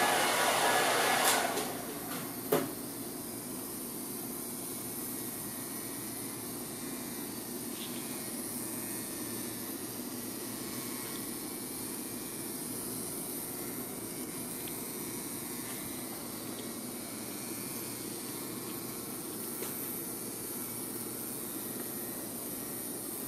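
A small battery-powered toy bug's motor buzzing, then cutting off abruptly after about a second and a half. A sharp click follows about a second later, and after that only a steady faint hiss remains.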